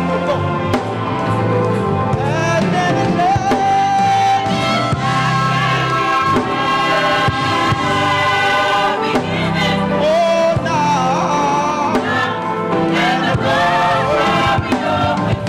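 A gospel choir singing with instrumental accompaniment, with long held and gliding notes over a steady bass line.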